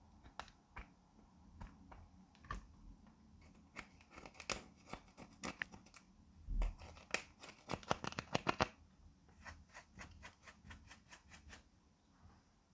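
Clear slime being squished and folded by hand, with small sticky pops and clicks. They come in a quick, dense run through the middle, then turn sparser near the end.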